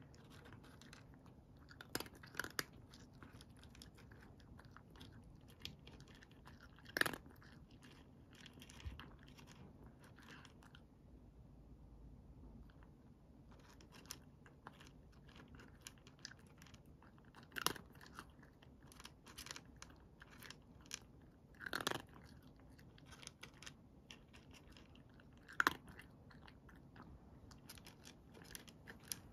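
A cat crunching dry kibble: clusters of short, crisp crunches, with a pause of a couple of seconds about halfway through and a few louder crunches standing out.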